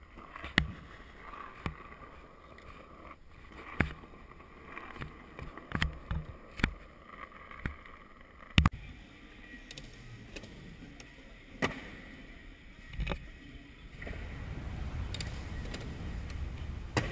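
Skateboard wheels rolling over asphalt: a low rumble with irregular sharp clacks from the board. About fourteen seconds in, the rolling noise grows louder and steadier.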